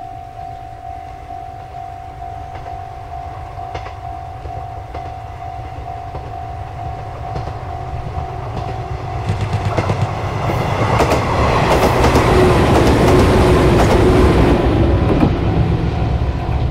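A train approaching and passing close by, building up over the first half and loudest for a few seconds in the second half, with the wheels clacking over the rail joints. A repeating ringing tone runs underneath and is drowned out while the train passes.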